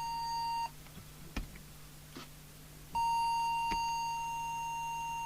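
Steady 1 kHz audio test tone used for setting FM transmit deviation on a CB radio. It cuts off about 0.7 s in and comes back about 3 s in, with a single click in the gap.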